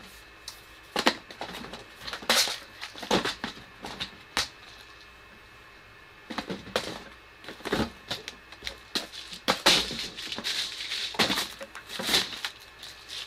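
Rummaging through a clutter of small hobby parts in search of M2 standoffs: irregular clicks, clatters and rustles, with a lull of about two seconds partway through.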